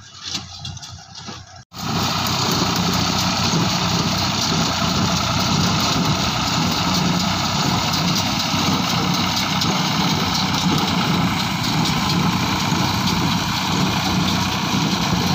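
New Holland tractor's diesel engine running steadily while it drives a small square baler through the PTO, baling dry sugarcane leaves. The sound is fainter and uneven at first, then becomes much louder and steady about two seconds in.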